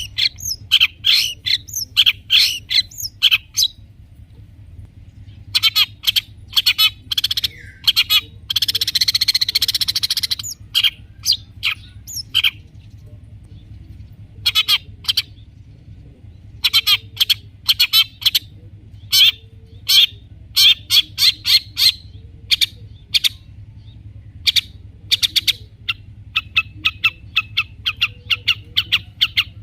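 Long-tailed shrike (cendet) singing a fast, varied song of sharp chirps and imitated calls of other birds. About 8 seconds in comes a harsh scratchy rasp, and near the end a quick rattling run.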